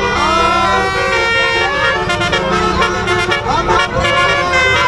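Bus telolet horn, a set of multi-trumpet air horns, playing a melody of several tones at once, with held notes and sliding pitches.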